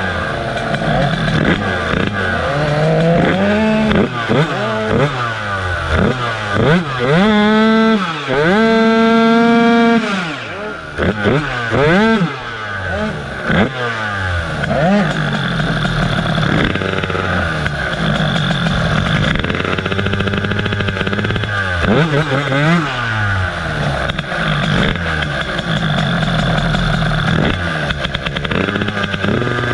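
Two-stroke scooter engine being revved again and again while standing, its pitch rising and falling with each blip. The rev is held high for about two seconds about eight seconds in.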